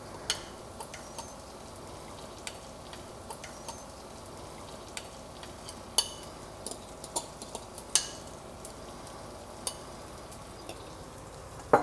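Crispy tofu cubes sizzling quietly in a hot nonstick frying pan as thick peanut sauce is scraped in from a bowl, with a handful of sharp clicks and taps scattered through, the loudest about halfway and two-thirds of the way in.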